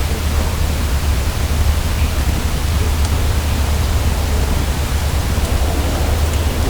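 Steady hiss of a heavily boosted outdoor field recording, with a low hum underneath and a few faint ticks.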